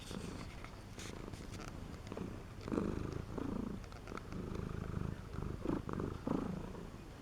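A cat's purring snore: a low, steady rumble that swells louder again and again in the second half, in time with its breathing.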